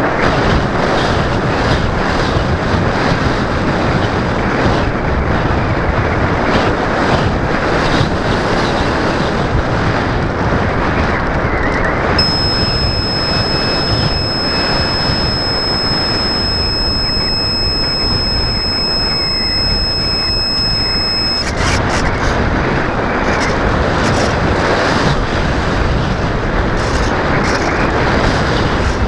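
Airflow rushing over the onboard camera's microphone on a Multiplex EasyGlider Pro RC model glider in flight: a loud, steady rush. From about 12 seconds in, a steady high-pitched whine sits over it for roughly nine seconds, then stops suddenly.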